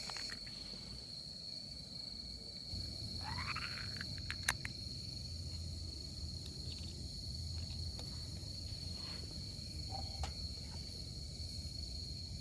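Steady chorus of night insects such as crickets, a continuous high trill, with a sharp click about four and a half seconds in.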